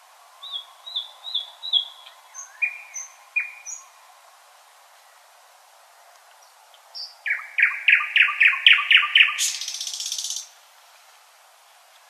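Common nightingale singing: a run of four quick repeated notes and a few whistles, then after a pause a loud, fast series of strokes that ends in a harsh buzzing rattle.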